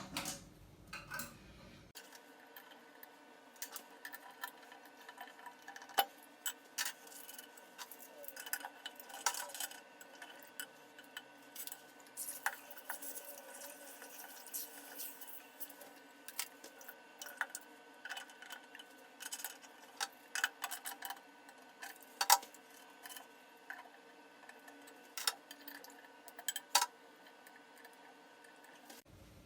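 Sped-up clinks, taps and scrapes of tools and metal faucet parts as a faucet's ceramic valve cartridge is unscrewed and replaced, many short irregular knocks in quick succession.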